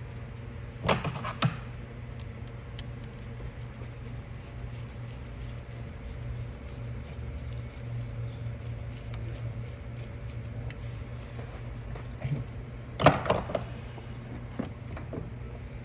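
A steady low hum with a few sharp knocks: two about a second in and a louder cluster of them near the end.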